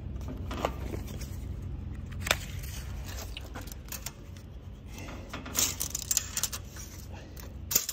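Steel tape measure pulled out and hooked over a steel frame: scattered metallic clicks and rattles of the blade and its hook, coming more often in the last few seconds, over a steady low hum.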